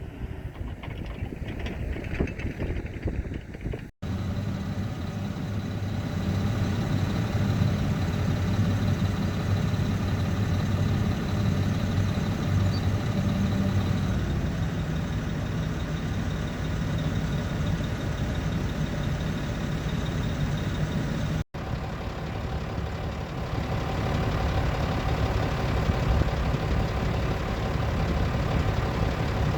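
Diesel engine of heavy earthmoving equipment running steadily, with two abrupt breaks where the footage is cut, about 4 and 21 seconds in.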